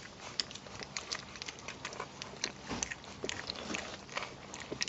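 Several puppies lapping up milk replacement, a quick, irregular patter of small clicks and smacks.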